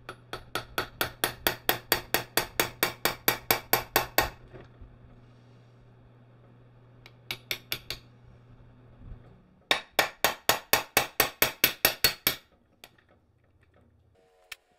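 Hammer tapping a steel shaft down into a Wheel Horse 8-speed transaxle case, with quick, even blows at about five a second. There is a run of about twenty blows, a pause, four more, then another run of about fifteen.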